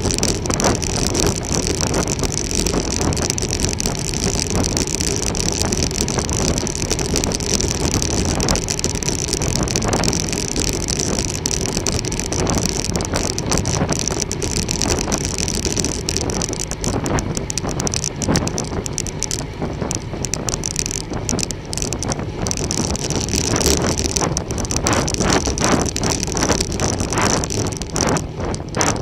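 Steady wind rushing over the microphone and tyre and road noise from a road bicycle being ridden, with scattered clicks and knocks through the second half.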